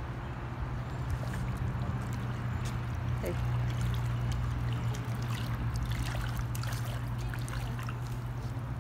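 Hot tub jets churning the water, a steady rushing with a low hum from the pump. Small splashes scattered through it as a toddler stands in the water and reaches into it.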